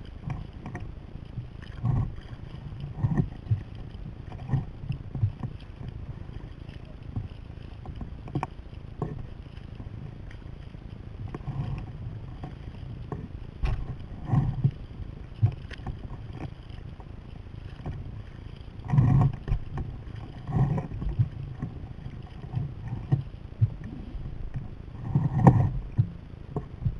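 Kayak under way: water washing along the hull and wind buffeting the deck-mounted microphone. A steady low rumble, with irregular louder thumps every second or two.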